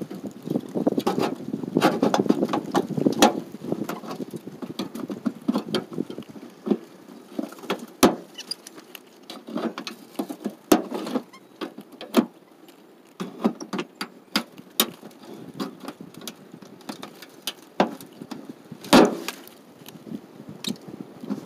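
Hands working at the underside of a rusty old vehicle body: irregular scraping and rustling with many sharp clicks and knocks, a few of them loud, one of the loudest about 19 seconds in.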